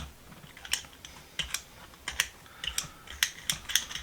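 Light, sharp clicks and taps of small ratchet parts being handled and fitted together during reassembly, irregular and coming more often in the second half.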